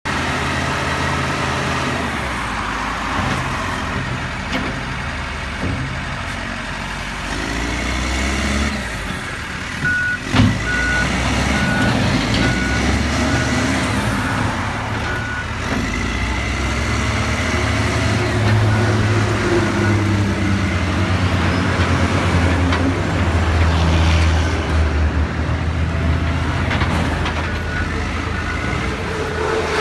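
Caterpillar 924F wheel loader's diesel engine running, its speed rising and falling as it works. From about a third of the way in, the reversing alarm beeps about once a second, off and on. A single sharp clank comes just as the beeping starts.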